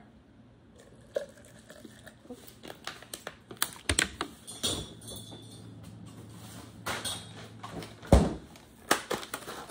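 Light clicks and knocks of a plastic water bottle and a plastic portable blender cup being handled, with one loud thump near the end.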